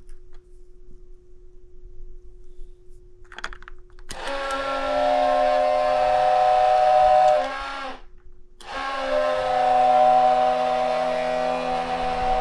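An old Tyco model train horn sounding two long blasts of about four seconds each, a short break between them, starting about four seconds in. Each blast is a buzzy chord of several notes that sags in pitch as it ends. A faint steady hum runs underneath.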